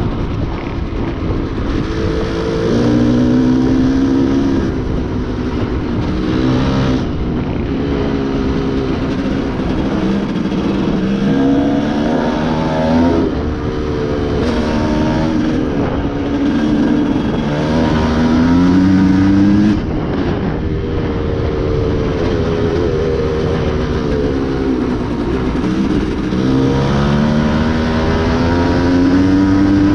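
Off-road dirt bike engine being ridden hard, its pitch climbing and falling again and again as the throttle is worked and gears change, over steady wind and terrain noise.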